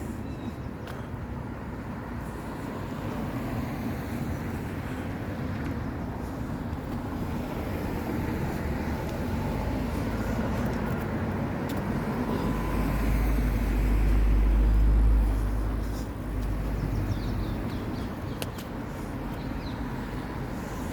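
Road traffic: steady noise of cars going by on a street. A vehicle passes close, its low rumble building to the loudest point about two-thirds of the way through, then falling away quickly.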